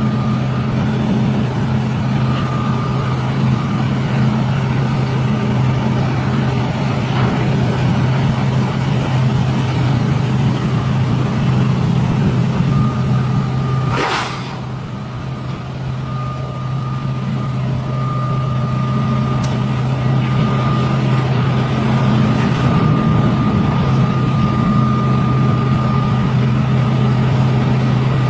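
Excavator's diesel engine running steadily under load with a high hydraulic whine that comes and goes. About halfway through there is a short sharp hiss, after which the engine drops off for a few seconds and then builds back up.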